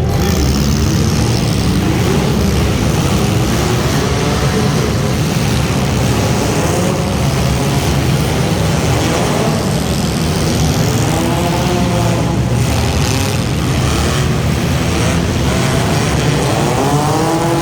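Front-wheel-drive race car engines revving, their pitch rising and falling several times over a steady low rumble.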